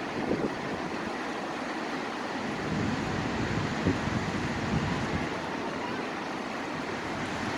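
Steady outdoor rushing noise with wind buffeting the microphone in low puffs now and then.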